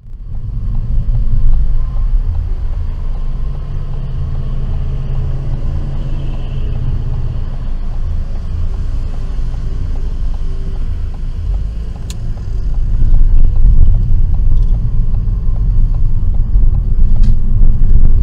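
Car's engine and road noise heard from inside the cabin through a dashcam microphone: a steady low rumble that grows louder about two-thirds of the way through as the car pulls away and speeds up, with a few single clicks near the end.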